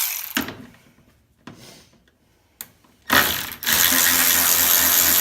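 Milwaukee M12 3/8-inch cordless ratchet running on a bolt: a loud, steady motor whir that starts about three seconds in, after a few short clicks and knocks of the tool being set on the bolt.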